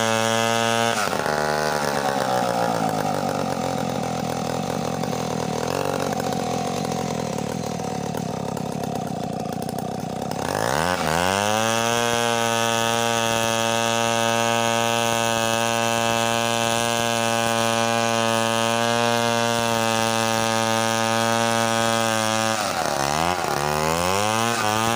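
Stihl 070 two-stroke chainsaw running at full throttle while ripping a coconut log lengthwise. The engine note sags for much of the first ten seconds as the chain works in the cut, then climbs back up to a steady high pitch, with another brief dip near the end.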